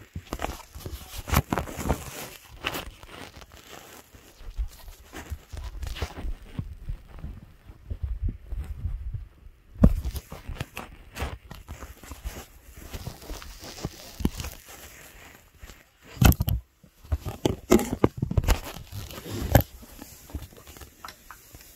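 Phone handled close to its microphone: irregular rustling, scuffs and knocks, the loudest about ten seconds in and again about sixteen seconds in.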